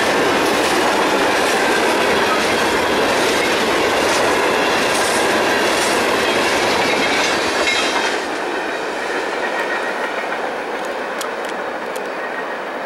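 Norfolk Southern grain train's covered hopper cars rolling past at speed, wheels clicking over the rail joints amid a dense rush of rail noise. About eight seconds in, the sound drops and turns duller.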